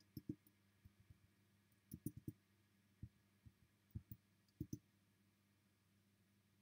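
Faint clicks of buttons being pressed, about a dozen short ones in small quick clusters, as a four-digit PIN is keyed in on a number pad and entered.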